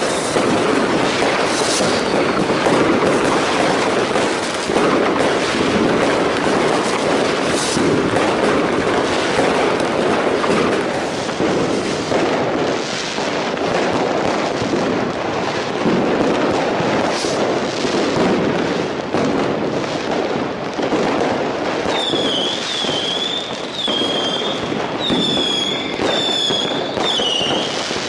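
Fireworks going off without a break, a dense run of bangs, pops and crackle. In the last several seconds a high whistling tone, dipping slightly in pitch, repeats about once a second over the crackle.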